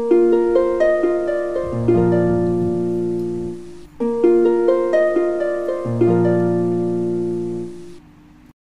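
Background music: a gentle plucked-string melody. One short phrase of sharply struck, fading notes over held low notes plays twice, then dies away near the end.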